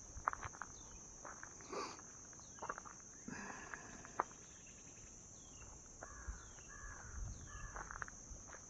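Steady high-pitched drone of insects singing, with a short falling chirp repeating about once a second. Footsteps crunch and rustle through grass and brush, with a few sharper snaps.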